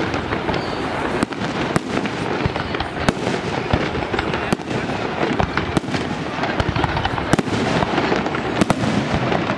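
Fireworks display: aerial shells bursting in an irregular string of sharp bangs, about one or two a second, over a dense steady background of noise.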